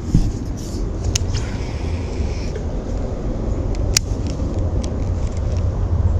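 Wind buffeting the microphone: a steady, fluttering low rumble, with a few sharp clicks about a second in and again about four seconds in.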